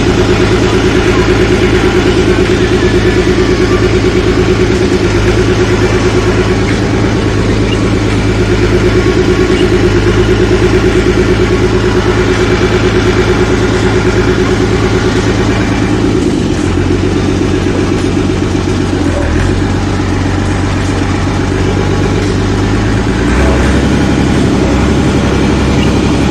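Tractor diesel engine running steadily, heard up close by its exhaust stack. Its pitch drops in two steps, about two-thirds of the way through and again near the end, as the engine slows.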